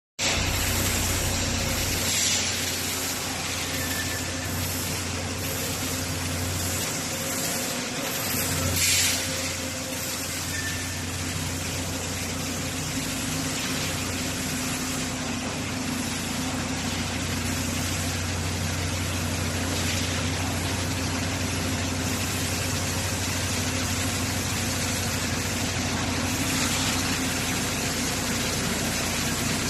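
A vehicle engine idling steadily, with two brief hisses about two and nine seconds in.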